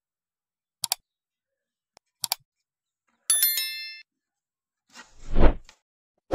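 Subscribe-button sound effects: two quick double mouse clicks, then a bright bell ding that rings for under a second, then a louder low rushing swell about five seconds in.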